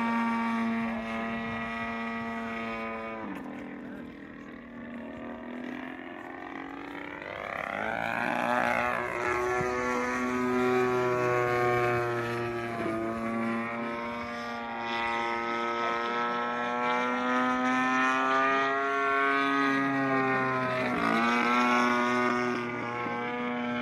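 Engine and propeller of an aerobatic radio-controlled Extra NG model airplane in flight, one pitched motor note that keeps changing with the throttle. It drops and quietens about three seconds in, climbs back up around eight seconds, then dips and rises again a few times as the plane works through its manoeuvres.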